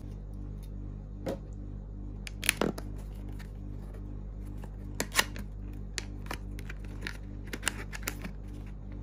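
Cardboard box being opened by hand: scattered crisp clicks, crackles and scrapes as the tape seal is broken and the end flap is worked open, the sharpest snaps about two and a half and five seconds in. Under it runs a steady low hum from a neighbour's air conditioner.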